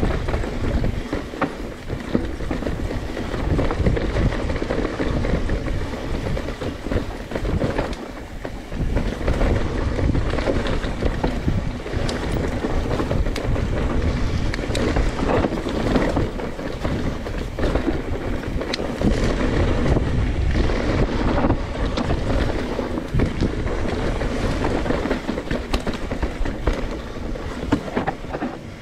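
Wind rushing over the microphone along with a Santa Cruz Nomad V6 full-suspension mountain bike's tyres rolling over dirt and rock, the frame and chain rattling and knocking over bumps as it descends the trail.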